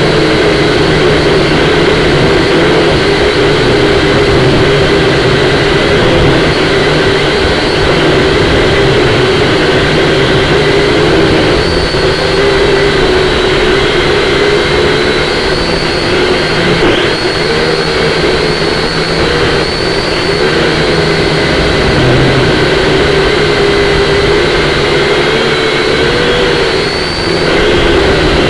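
Syma X5C-1 quadcopter's small motors and propellers buzzing steadily, the whine wavering up and down in pitch as the throttle changes.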